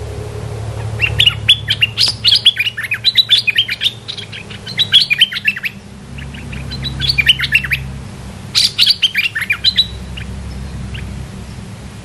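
Dok Taeng songbirds (the caged decoy and a wild bird drawn in to it) singing fast, chattering runs of short, high falling notes, in three bouts about a second apart.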